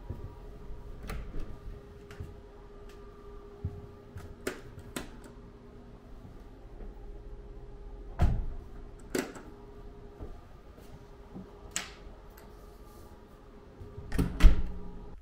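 Door sounds: a metal lever handle and latch clicking and a door knocking shut. The loudest clunks come about eight seconds in and again near the end as the handle is worked, with scattered lighter clicks between them over a faint steady hum.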